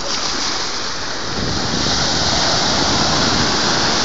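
Sea surf: small waves breaking and washing in the shallows, a steady rush that swells louder about halfway through.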